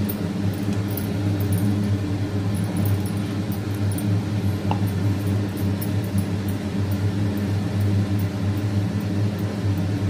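A steady low machine hum runs unchanged, like a fan motor. Over it come faint scrapes and clicks of a wooden spatula stirring a thick milk mixture in a nonstick pan.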